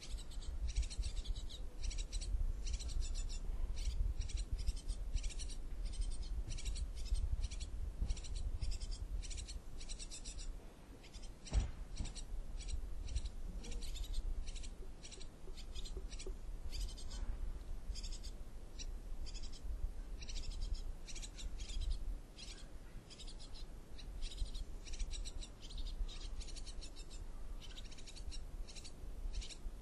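Tit nestlings begging inside a nest box: a dense series of short, high-pitched calls, over a low rumble. The calls pause briefly a couple of times, and there is a single sharp click about twelve seconds in.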